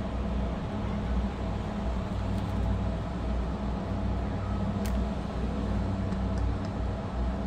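Steady low mechanical hum, with one light click about five seconds in.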